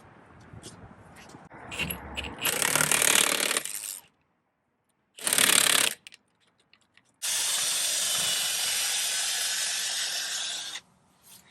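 A power tool run in three bursts: two short ones, then a steady run of about three and a half seconds, with a few light clicks before them.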